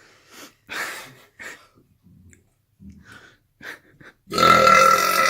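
A man gulps air in several short swallows, then lets out a long, loud burp about four seconds in, with a steady pitched drone.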